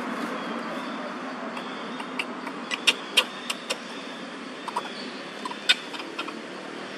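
Steady outdoor background noise with a scatter of short, sharp clicks and chirps, about a dozen of them, the loudest near three seconds and again near six seconds in.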